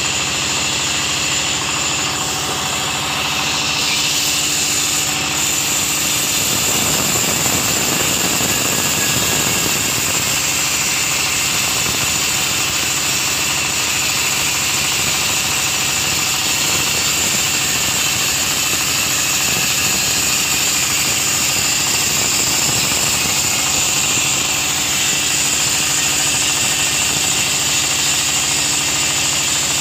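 Sawmill band saw running and cutting a teak (segun) plank: a steady mechanical drone with a constant high whine.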